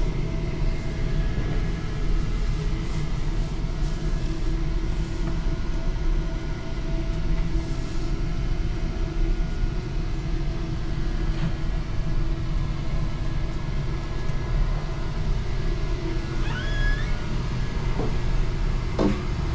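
Steady low rumble and hum of restaurant machinery, such as refrigeration or ventilation, holding several steady tones. A few faint short squeaks and clicks come near the end.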